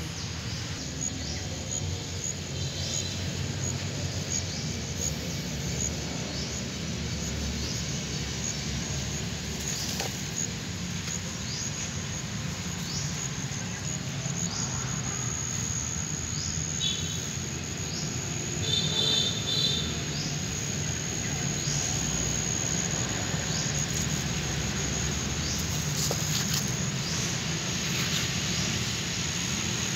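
Outdoor garden ambience: a steady high-pitched insect drone, with short chirps repeating about every second and a half and two brief louder buzzy calls around the middle, over a low steady rumble.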